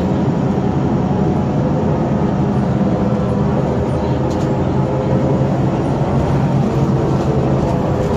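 Steady running noise heard from inside a moving New Flyer D40LF city bus: its Detroit Diesel Series 50 diesel engine running, with road and cabin rumble.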